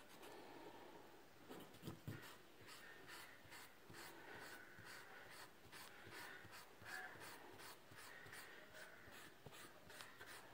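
Faint, rhythmic rubbing strokes of a drawing tool over graphite-shaded drawing paper, about three strokes a second, as a dark pencil background is shaded in.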